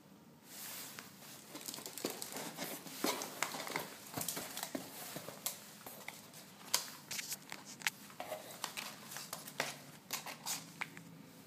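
Cardboard box flaps being opened and polystyrene packing peanuts rustling and squeaking as a hand digs in, then a foil parts bag crinkling as it is lifted out. A dense, irregular run of rustles and sharp crackly clicks.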